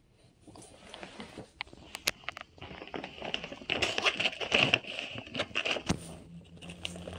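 A plastic snack bag rustling and crinkling in the hand, with scattered light clicks and taps.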